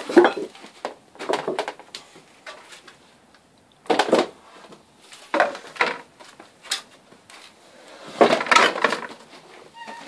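Metal steering wheel and shaft of a Berg go-kart clattering and knocking in irregular bursts as it is handled and dipped into a bowl of liquid, the longest rattle about eight seconds in.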